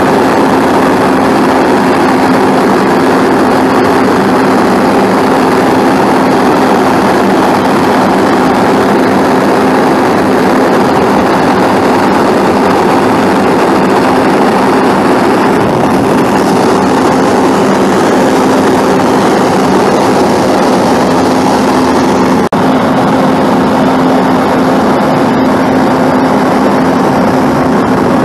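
International DT530 8.7 L inline-six turbo diesel engine running at a steady speed, with an even hum.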